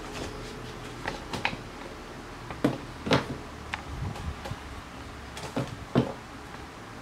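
A few separate light knocks and clicks from a sneaker being handled and set on a glass-topped kitchen scale to weigh it.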